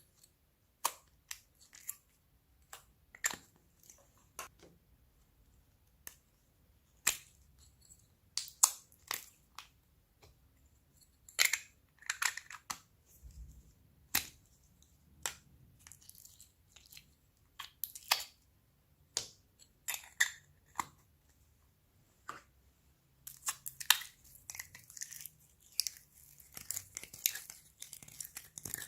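Hand-worked slime: sticky clicks and pops from the slime being pressed, poked and stretched. The clicks come singly every second or so, then crowd together into a fast crackle over the last few seconds.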